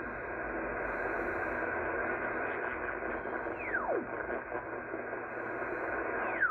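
Kenwood R-5000 shortwave receiver in lower sideband playing steady band noise as the dial is turned down through the 40 m band. Twice a whistle slides steeply down in pitch, once midway and again at the very end: station carriers beating through the passband as the tuning sweeps past them.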